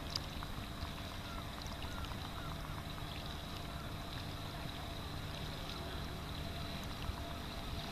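Sea kayak on calm harbour water: faint small splashes and drips of water around the hull and paddle over a steady low rumble, with a faint steady high tone.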